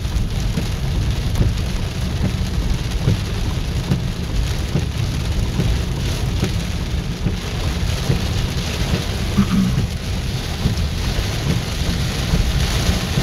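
Heavy rain drumming on a car's roof and windshield, heard from inside the car: a steady hiss of many small drop hits over a constant low rumble.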